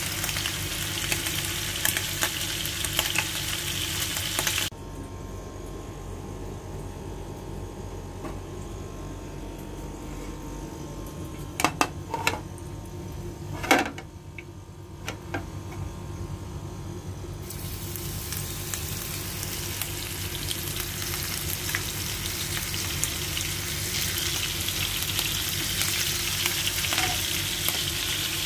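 Calamari rings sizzling as they fry in hot oil in a pan. The sizzle drops away suddenly about five seconds in, leaving a quieter stretch with a few sharp clicks. A fresh batch then sizzles again from about two-thirds through, slowly getting louder.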